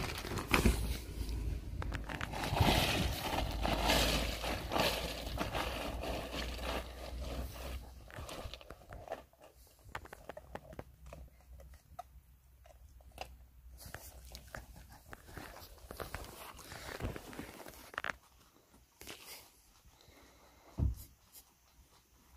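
Ice cubes crunching and clattering as a dog bites and chews at the ice. The crunching is dense for the first several seconds, then thins to scattered crunches, with one sharper crunch near the end.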